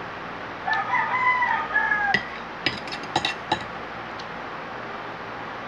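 A rooster crows once, a long pitched call of about a second and a half. After it come a few sharp clinks of cutlery against a plate.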